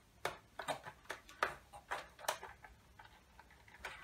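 Quick, irregular clicks and taps as a dial-scale lamp holder is twisted out of its mount by hand inside a Pioneer TX-8500 II tuner: about ten in the first two and a half seconds, and one more near the end.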